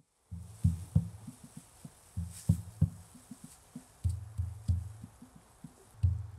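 Irregular low thumps and short rumbles, some much louder than others, over a faint steady hiss.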